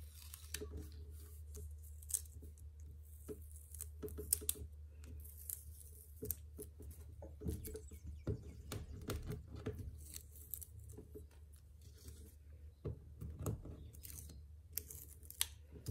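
Quiet handling sounds: scattered light taps, clicks and rustles of small painted canvases being picked up and set down on a table, over a low steady hum.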